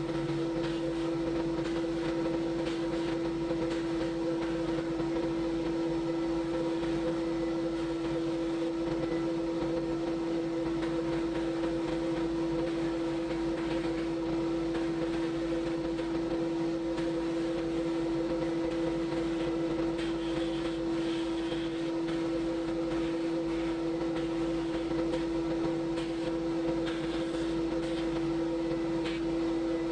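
Electric motor of a workshop power tool running at a constant speed, a steady hum over a light hiss.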